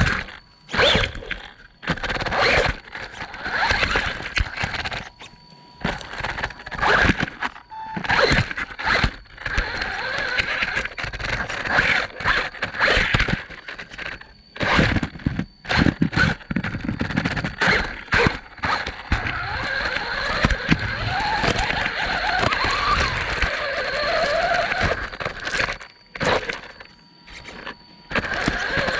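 Electric RC buggy driven in short throttle bursts over stone and rocks, heard from on board: the motor and gears whine up and down while the tyres scrape and the chassis knocks against the stones. It stops and starts several times, going nearly quiet for a moment about two-thirds of the way through and again near the end.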